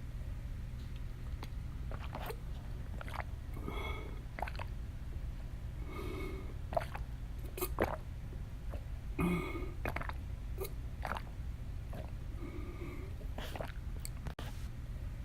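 A woman gulping water: several separate swallows a couple of seconds apart, with small wet mouth clicks between them, over a steady low hum.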